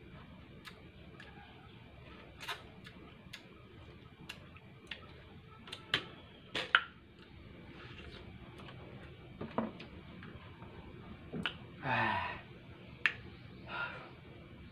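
Close mouth sounds of eating a ripe mango: scattered sharp lip smacks and wet sucking clicks as the fruit is chewed and sucked, loudest about six to seven seconds in. A short falling voiced sound comes about twelve seconds in.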